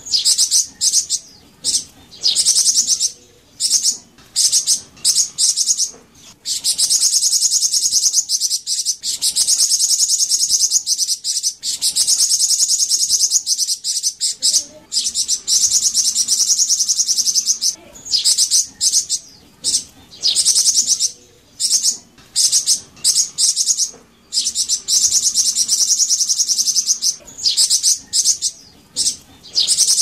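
Flamboyan (golden-headed cisticola) singing: long, high, fast buzzing trills lasting a few seconds each, alternating with runs of short, quick chips.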